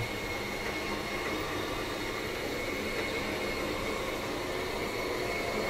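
Electric drive of a caravan's slide-out room running steadily as the room extends: an even mechanical rumble with a faint steady high whine.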